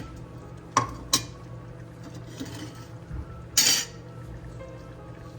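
Kitchen utensil clinking against cookware: two sharp clinks about a second in, then a brief, louder scraping sound about three and a half seconds in, over faint background music.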